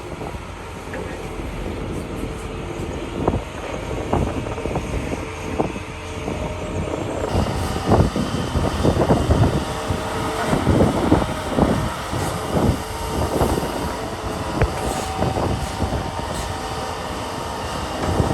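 Heavy construction machinery running, an excavator or truck diesel engine, with repeated irregular knocks and clanks. The knocks come thickest about halfway through.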